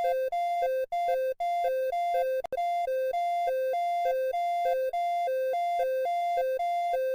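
Emergency alert alarm: two buzzy electronic tones, one higher and one lower, alternating back and forth about every third of a second in a hi-lo pattern, with a few brief cut-outs in the first seconds.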